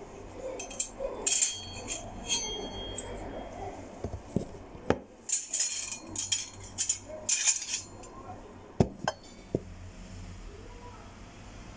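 Irregular clinking and clattering of small hard objects in short bursts, with a few sharp knocks among them, like dishes or cutlery being handled.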